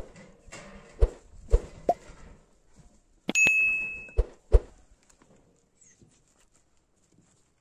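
Metal cookware being handled: several knocks and thumps, and one short ring of struck metal about three and a half seconds in.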